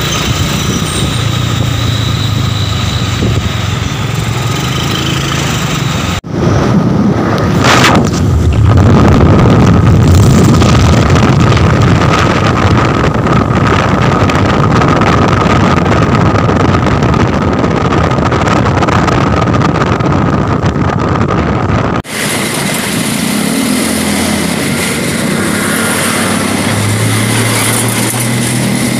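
Road noise of light diesel trucks: engine running and tyres on the road, heard from close behind a truck. Through the middle stretch it is louder and heavier as another light truck drives toward and past. The sound changes abruptly at two cuts, about six seconds in and near the end.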